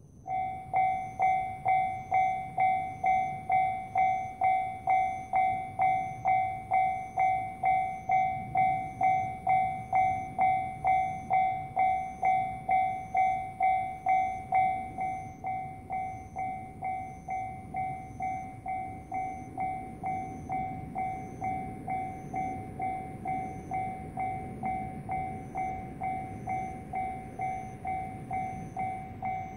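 Japanese level-crossing warning bell ringing, the signal that a train is approaching: a clanging tone struck about twice a second that starts suddenly just after the start and turns quieter about halfway through.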